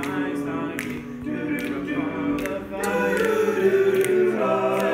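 Men's choir singing a cappella: several male voices hold sustained chords that change pitch, growing louder about halfway through.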